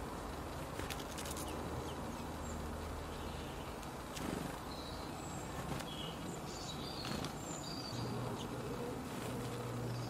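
Garden ambience: scattered short, high bird chirps over a low steady hum and background noise, with a few faint clicks.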